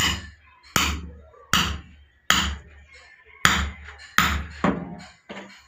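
Hammer blows on a steel punch driven into thick tire rubber to punch a hole in a homemade bushing. Eight sharp strikes, roughly one every three-quarters of a second, each with a brief ring; the last one is lighter.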